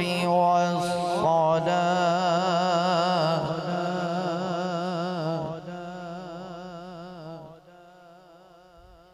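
A man reciting the Quran (tilawat) into a microphone, drawing out one long melodic phrase with wavering ornaments in the voice. The phrase tapers off over the last few seconds.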